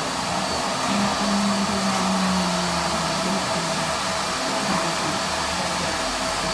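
Hand-held hair dryers blowing, two or more at once, a steady whir with a steady hum running through it.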